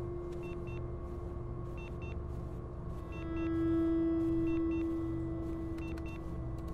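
Electronic film score: a held synth tone that swells about three seconds in, over a repeating low pulse, with short high electronic beeps and ticks.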